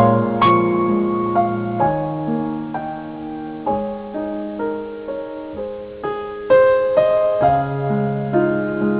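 Slow, gentle piano music: single struck notes and chords ringing on, a new note about every half second to a second.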